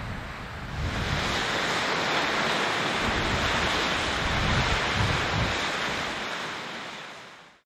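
Sea waves washing onto the shore, a steady hiss of surf that swells about a second in, with wind buffeting the microphone in gusts; the sound fades out near the end.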